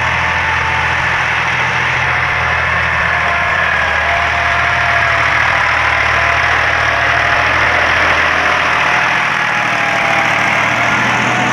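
Massey Ferguson 260 turbo diesel tractor engine running steadily as the tractor pulls a tine cultivator and leveling plank through tilled soil. The engine note holds even throughout.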